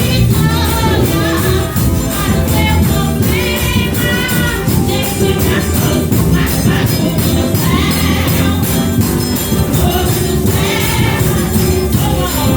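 Live gospel music: voices singing over a band, with a tambourine jingling on a steady beat.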